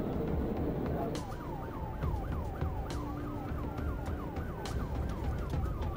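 Police car siren in a fast yelp, sweeping up and down about three times a second from about a second in, with a slower wailing tone rising and falling beneath it. It is heard from inside the pursuing patrol car over steady road and engine noise.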